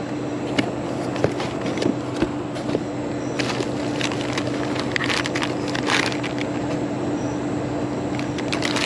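Plastic trash bag and snack wrappers rustling and crinkling as gloved hands dig through them, in several spells through the middle and again near the end, over a steady low hum.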